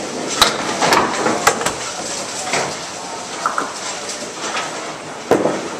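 Candlepin bowling alley at play: small candlepin balls rolling down the wooden lanes with a steady rumble, and sharp clacks of balls and pins striking several times, the loudest hit about five seconds in.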